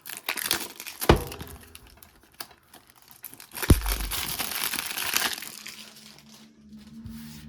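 Plastic shrink-wrap being torn and crinkled off a sealed DVD case. There is a sharp click about a second in and another near the middle, and the rest is quieter handling.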